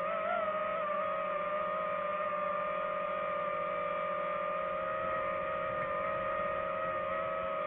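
DJI FPV drone's motors and propellers humming steadily in flight, the pitch wobbling briefly about half a second in, then holding even.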